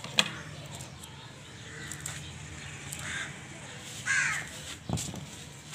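A bird cawing a few times in harsh calls, the loudest about four seconds in, with a single sharp click just after the start.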